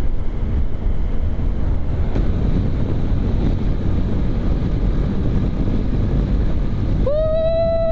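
Wind buffeting the microphone of a moving motorcycle, with a steady low rumble. Near the end a vehicle horn sounds one steady note for about a second.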